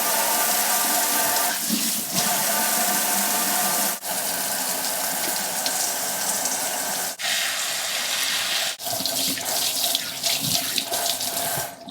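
Kitchen tap running into a sink while hands are washed under it: a steady rush of water, broken by a few brief dips.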